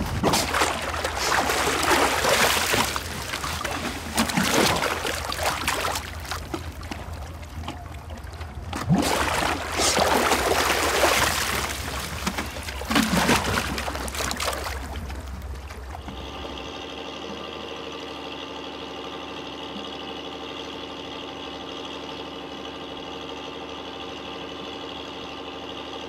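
Wet river sand and water being tipped into a sand-fishing pirogue, a run of splashing pours a few seconds apart over a low hum. After about sixteen seconds this gives way to a quieter steady drone of several held tones.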